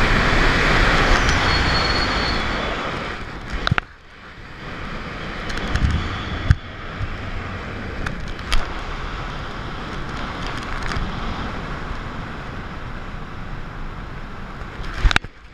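Wind rushing over a wrist-mounted camera's microphone during parachute canopy flight, strongest for the first few seconds and then easing, with a few sharp knocks.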